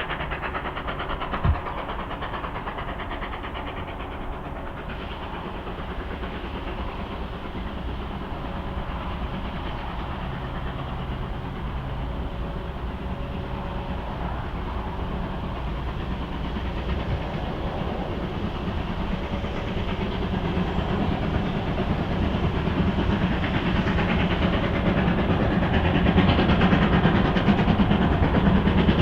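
Steam locomotive working a train, its running and exhaust noise growing steadily louder over the last ten seconds as it approaches. A single sharp knock sounds about a second and a half in.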